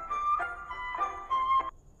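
Instrumental background music: a melody of short notes that changes pitch every fraction of a second, breaking off briefly near the end.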